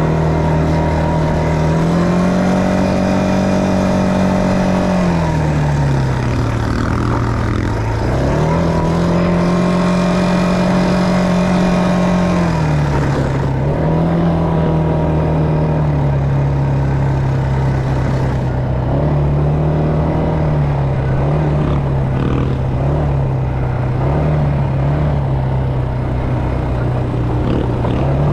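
ATV (quad bike) engine running under the rider, its pitch rising as the throttle opens and falling as it closes. There are two long surges in the first half, then a steadier run with several short throttle blips in the second half.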